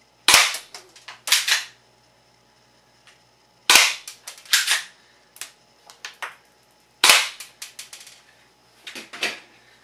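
Airsoft BB gun firing three shots about three and a half seconds apart, each a sharp crack followed by a few smaller clicks and rattles.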